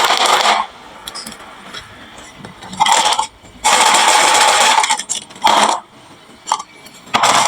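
Marbles rolling and rattling down a HABA wooden marble-run slope in several separate bursts, with clinks as they drop into toy trucks.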